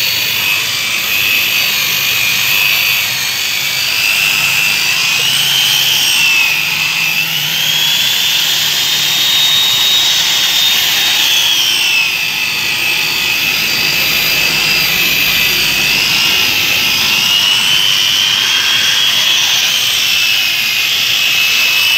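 Electric rotary car polisher with a foam pad running against a car bumper with polishing compound, rubbing off paint left there by another car in a light scrape. Its motor gives a steady whine that rises in pitch for a few seconds in the middle, while the pad is lifted off the bumper, then drops back and wavers as it is pressed on again.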